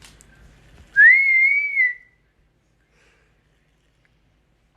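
Congo African grey parrot whistling a single clear note about a second long, starting about a second in; it rises, then holds with a slight wobble.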